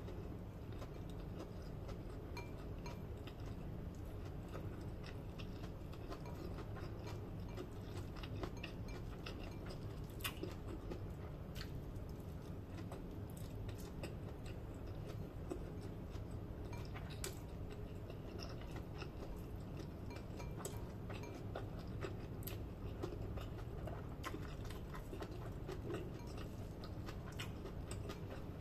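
Close-up chewing of fried rice eaten by hand, with many small scattered mouth clicks and smacks over a steady low background hum.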